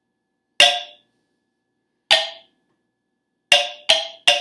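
Wooden xylophone bars struck with mallets, five short notes, the last three in quick succession near the end. Each note dies away almost at once, because the wooden bars vibrate only briefly.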